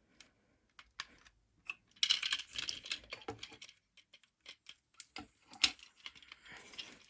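Small hard plastic parts of an action-figure upgrade kit being handled and pushed into place: scattered clicks and clatters, with a denser run of clicking about two to three seconds in.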